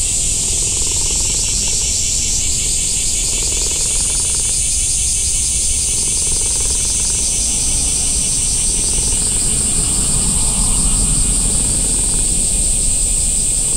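Cicadas singing in chorus: a steady high-pitched drone with a fast pulsing trill beneath it, several insects overlapping, one joining about four seconds in.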